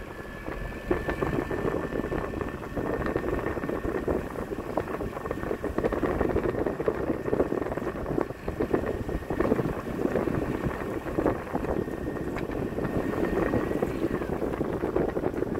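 Boat motor running under throttle, with wind buffeting the microphone and a faint steady high whine through most of it.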